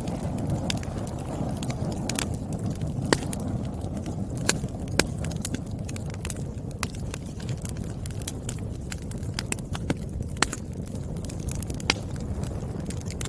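Wood fire burning: a steady low rush of flames with sharp, irregular pops and crackles from the burning firewood, a few of them loud snaps.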